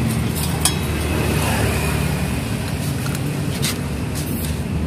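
Steady low rumble of a motor vehicle engine running nearby, with a couple of sharp metallic clicks as the exhaust pipe and torch are handled.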